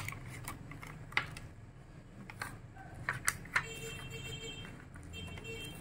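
Scattered light clicks, taps and crinkles of a small cardboard earbud box and its plastic packaging being handled and opened by hand, over a low steady hum.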